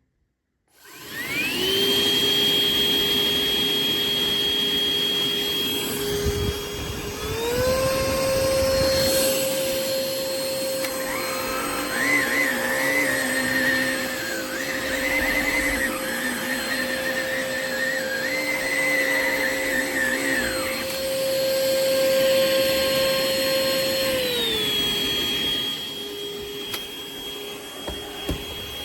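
Hoover ONEPWR Evolve Pet Elite cordless stick vacuum switched on, its motor spinning up to a steady high whine about a second in. Around seven seconds the pitch steps up to a higher speed, a second wavering whistle comes and goes through the middle, and near the end the motor steps back down.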